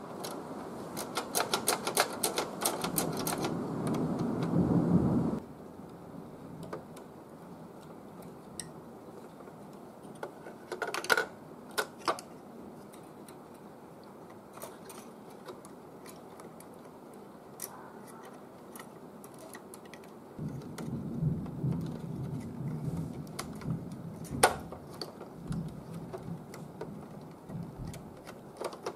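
Small plastic clicks and rubbing from parts of a disassembled inkjet printer being handled. There is dense clicking and scuffing for the first five seconds, scattered single clicks after that, and more rubbing with clicks from about twenty seconds in.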